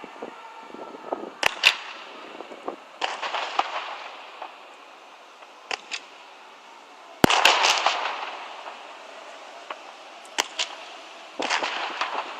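Aerial fireworks exploding: irregular sharp bangs, the loudest about seven seconds in, several of them followed by a second or so of crackling.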